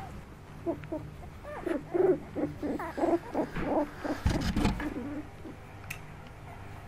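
Young puppies whimpering: a string of short, squeaky calls, with a muffled bump about four seconds in as a puppy knocks into the camera.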